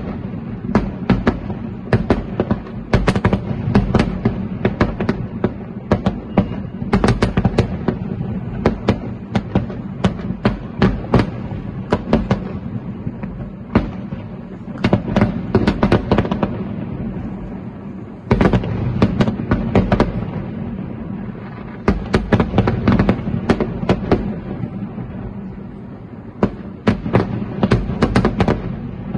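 Aerial fireworks shells bursting in rapid, irregular volleys of sharp bangs over a continuous low rumble, with a brief lull about 18 seconds in.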